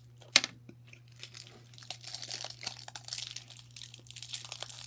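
Candy wrapper being crinkled and torn open by hand: a sharp click about half a second in, then a dense, crackly rustle of plastic that builds up over the last few seconds.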